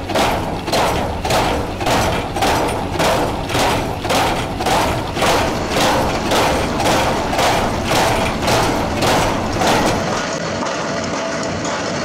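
XCMG XR150D rotary drilling rig's kelly bar and auger clanking in a steady rhythm, about two knocks a second. About ten seconds in the knocking stops and only the steady hum of the heavy engine is left.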